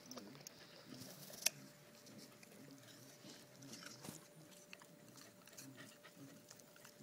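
Rottweiler faintly chewing and licking its lips over a bitten apple, with small wet clicks and one sharp click about a second and a half in.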